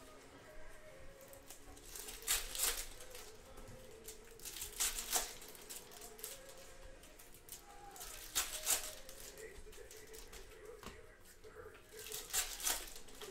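Foil trading-card packs (2016 Panini Donruss Optic football) being torn open and crinkled by hand, in four short bursts of crackling a few seconds apart.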